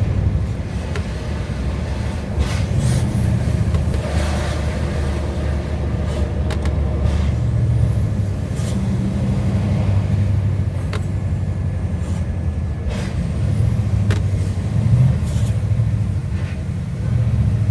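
Scania R730's V8 diesel engine running under way, a deep steady note whose revs and loudness rise and fall several times, with scattered short sharp clicks or hisses over it.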